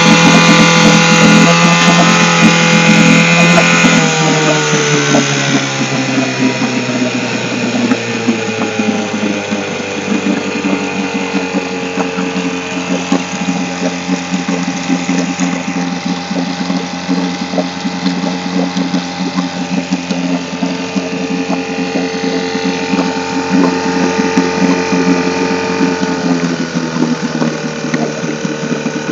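1962 Johnson Sea Horse 5.5 hp two-stroke twin outboard running in a test barrel, its propeller churning the water. The engine's pitch drops about four seconds in, then it runs steadily, dipping a little again near the end.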